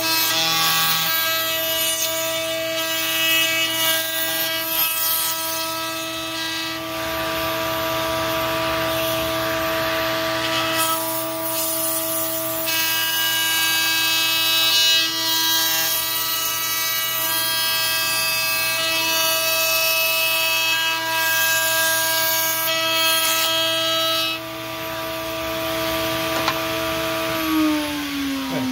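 Table-mounted router running at speed, its bearing-guided bit cutting wood as the piece is fed around a hardwood guide; the cutting noise comes and goes over a steady motor whine. Near the end the router is switched off and its whine falls as it spins down.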